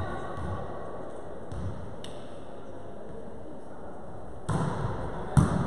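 A volleyball being struck during a rally on an indoor court, the hits echoing in the hall. A faint hit comes about two seconds in, a louder hit about four and a half seconds in, and a sharp smack near the end, the loudest sound.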